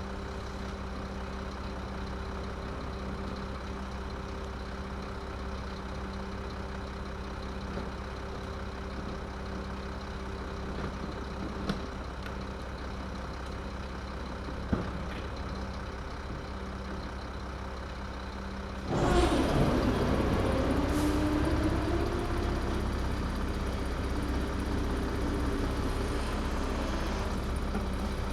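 Garbage truck's diesel engine idling steadily, with a couple of small clicks. About two-thirds of the way through it suddenly gets louder, with a whine that dips and then rises, as the truck works to pick up the garbage.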